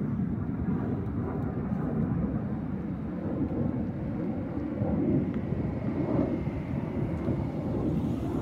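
Steady low rumble of distant aircraft engines, with a faint thin whine joining about halfway through.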